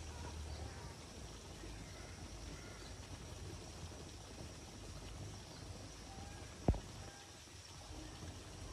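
Outdoor ambience with a low steady rumble, faint chirps and a faint high steady hum, broken by one sharp knock about two-thirds of the way through.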